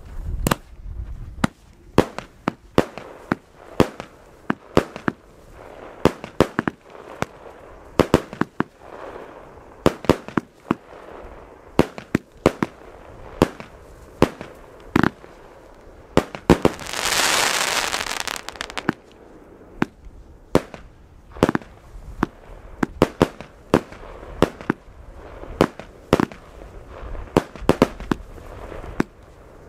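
Fireworks going off: a long run of sharp bangs at uneven intervals, one or two a second, with a hissing rush lasting about two seconds a little past halfway through.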